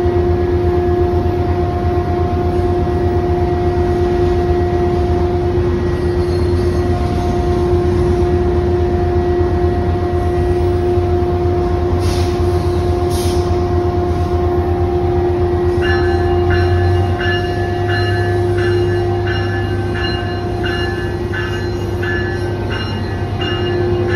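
Double-stack intermodal freight train rolling past, a steady low rumble with a constant hum over it. About two-thirds of the way through, a regular clicking about twice a second joins in.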